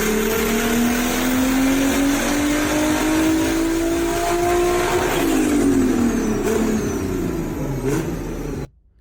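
Inline-six car engine under acceleration. Its pitch climbs steadily for about five seconds, then drops and wavers, and the sound cuts off abruptly near the end.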